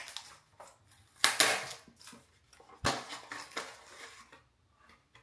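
Plastic makeup packaging being handled and worked open: a sharp click at the start, a crinkly rustle a little over a second in, then another sharp click near three seconds followed by more rustling.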